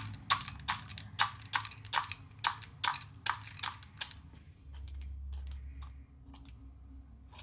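Dry dog kibble being added piece by piece into a bowl on a kitchen scale, each piece landing with a sharp click, about two or three a second. The clicks thin out after about four seconds as the weight nears 50 grams.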